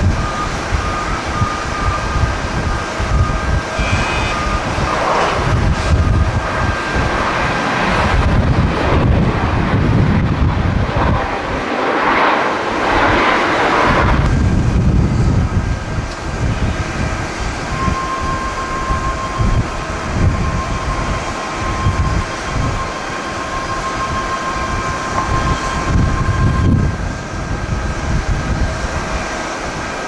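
Jet airliners at close range: the roar of turbofan engines from a landing Boeing 737 and then a Boeing 767 on approach, with a thin steady engine whine through the second half. Gusty strong wind buffets the microphone.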